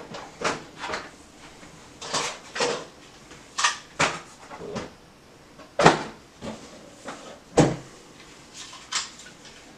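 Irregular light plastic clicks and clacks from a small plastic tool case being handled and worked open, with two sharper knocks past the middle.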